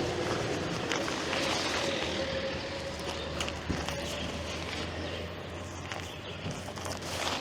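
Garbage truck engine running steadily nearby, a low hum with a steady whine above it, with a few scattered light clicks and rustles over it.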